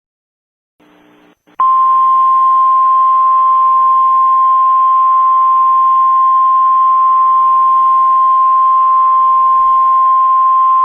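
Emergency Alert System attention signal in the NOAA Weather Radio style: a single loud, steady tone of about 1050 Hz over a band of hiss. It starts abruptly about a second and a half in, after a brief faint hiss.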